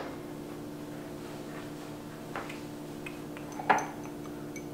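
Kitchen quiet with a steady low electrical hum, broken by a faint knock and then a sharper clink about three-quarters of the way through as a small glass cup of warmed cream is handled.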